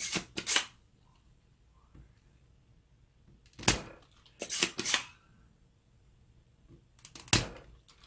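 Spring-loaded desoldering pump being cocked and fired against a circuit board, sharp snaps and clicks as it sucks solder from the legs of an exploded switching-controller IC. The snaps come in three clusters: at the start, about four to five seconds in, and once more near the end.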